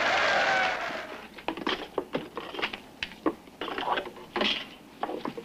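Crowd applause fades out about a second in, followed by a string of irregular light knocks, clicks and rustles as small objects are handled.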